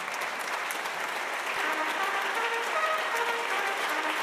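Audience applauding, a dense steady clapping, with soft background music of held notes coming in under it about one and a half seconds in.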